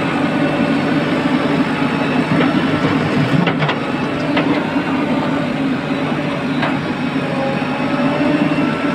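Diesel engines of a tractor and a JCB 3DX backhoe loader running steadily while the backhoe works. About three and a half seconds in, a few knocks as a bucket of soil is dumped into the steel tractor trailer.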